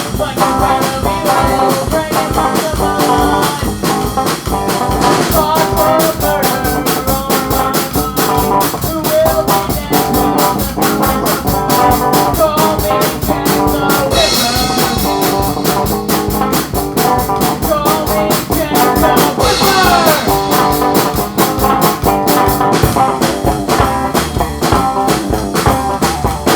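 Psychobilly band playing a fast song with a driving, evenly pulsing drum beat, with pitch slides a little past the middle and again about two-thirds of the way in.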